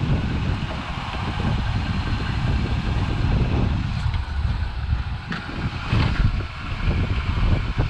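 Wind buffeting the microphone as a low, uneven rumble, with a few faint clicks about four to six seconds in.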